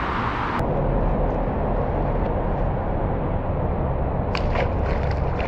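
Steady outdoor background rumble with a hiss above it, and a short cluster of sharp clicks about four and a half seconds in.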